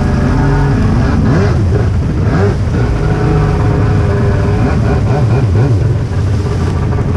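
Jet ski engine running at low speed, its pitch rising and falling a few times in the first seconds as the throttle is worked, over the rush of water along the hull.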